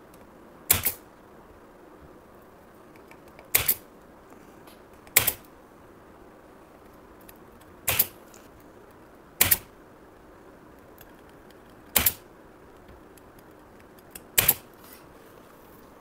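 Seven sharp clicks, irregularly spaced a second and a half to three seconds apart, made while a current transformer is being desoldered from an air-conditioner circuit board.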